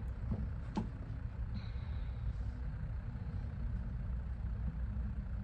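Electric potter's wheel motor running with a steady low hum, and a light click a little under a second in.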